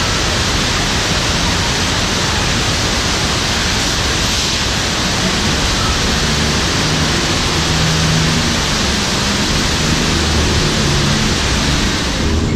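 Loud, steady rush of cascading water from a staged flash-flood effect, with a low hum joining about halfway through. The rush stops abruptly at the end.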